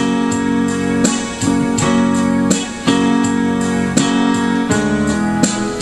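Instrumental music between sung lines: sustained keyboard chords, electric piano-like, over a steady beat.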